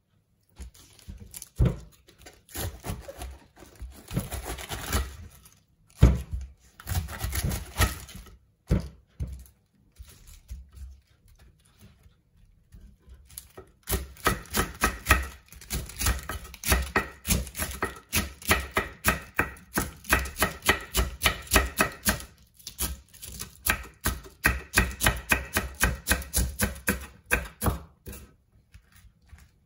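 Kitchen knife cutting iceberg lettuce on a wooden chopping board: a few separate cuts through the head in the first half, then, about halfway in, quick steady chopping strokes, about three a second.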